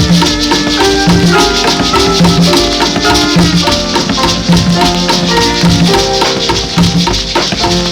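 Instrumental passage of a Cuban guaracha played from a 78 rpm record: maracas shaking over a steady bass line, with melodic notes above.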